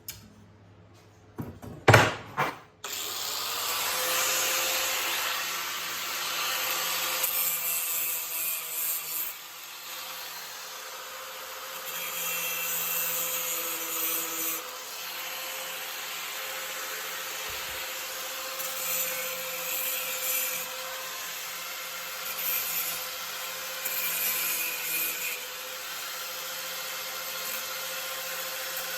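A handheld power tool abrading steel, with a steady hiss of grit on metal over a constant motor tone, after a few loud sharp knocks about two seconds in.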